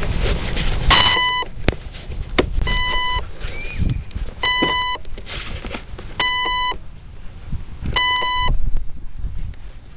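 An electronic beeper sounds five times, each beep about half a second long at the same pitch, repeating about every 1.8 seconds. Gusty wind rumbles on the microphone underneath.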